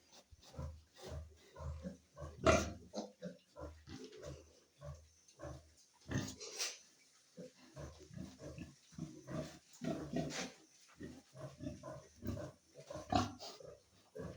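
Pigs and piglets grunting in short, repeated grunts, with a few louder, sharper squeals about two and a half seconds in, around six seconds in and near the end.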